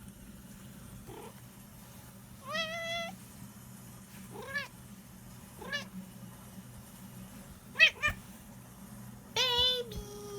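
A domestic cat meowing repeatedly: about six separate meows a second or two apart, a faint one first and a longer one near the end.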